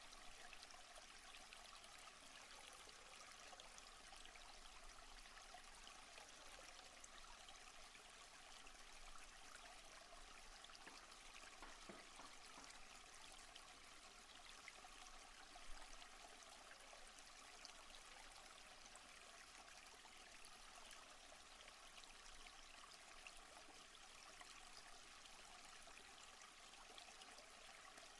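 Faint, steady sound of a stream running.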